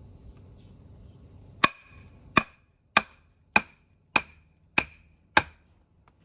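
Seven quick, evenly spaced strikes of a hand tool on wood, about one every 0.6 seconds, each with a short metallic ring. Crickets chirp steadily behind them.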